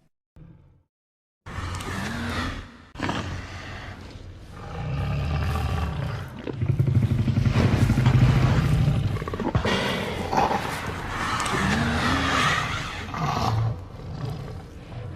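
Tyrannosaurus rex film creature sound effect: a brief grunt, a short pause, then a long run of deep roars and rumbling growls, the deepest and loudest in the middle, with some rising and falling bellows near the end.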